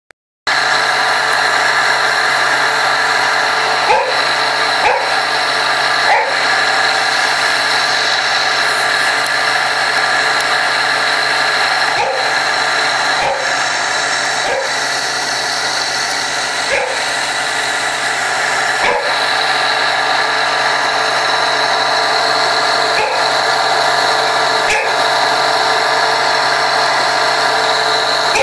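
Motor of a water pump running steadily, with a dog giving short barks now and then, about a dozen over the stretch.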